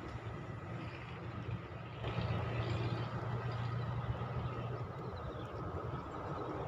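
Steady low engine-like hum with a faint high whine over it, getting louder about two seconds in.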